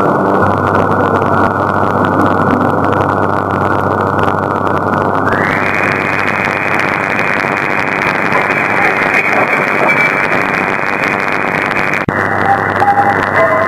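Shortwave AM reception through a software-defined radio: a steady hiss of static and noise over a weak, barely readable broadcast signal. The receiver's audio filter widens about five seconds in, letting more high-pitched hiss through, and narrows again near the end with a brief dip in level.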